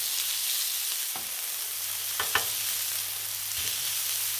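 Ground-beef patties sizzling steadily on a hot flat-top griddle while being pressed flat with a metal burger press. A few short clicks come through: one about a second in and two close together a little after two seconds.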